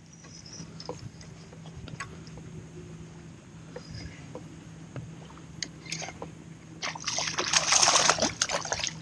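A hooked speckled trout thrashing and splashing at the water's surface beside a kayak, a loud splashing burst of about two seconds that starts around seven seconds in. Before it, light water sloshing with a few small clicks.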